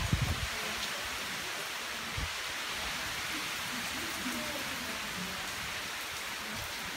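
Steady rain pouring onto a garden lawn and shrubs, a dense, even hiss.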